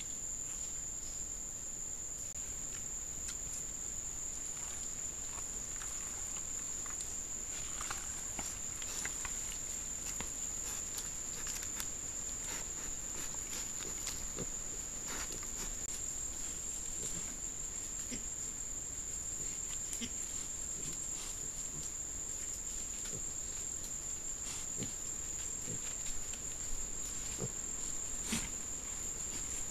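A steady high-pitched trill of night insects, over scattered rustles and footfalls of wild boar moving on the leaf litter and soil of a wallow, with a few louder ones near the end.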